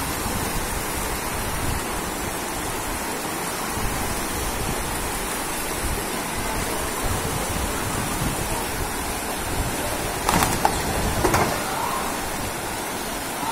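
Steady rushing of fast-flowing floodwater surging down a street, with two brief louder sounds about ten and eleven seconds in.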